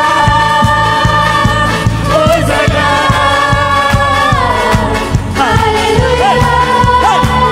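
Live worship band playing a Tamil Christian worship song: several singers holding long notes together over keyboard, guitars and a steady drum beat.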